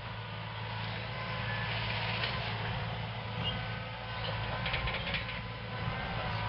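Hitachi 130 excavator's diesel engine running steadily, with a brief rattling noise about five seconds in.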